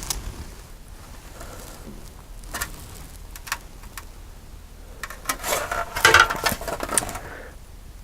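Hard plastic model kit parts being handled: scattered sharp clicks and taps, then a busier stretch of clicking and rustling about five seconds in.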